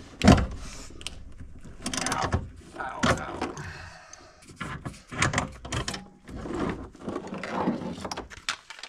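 Irregular clicks, knocks and metallic rattles of hand work on the rear seatbelt's bolted hardware in a car interior, with a sharp knock just after the start.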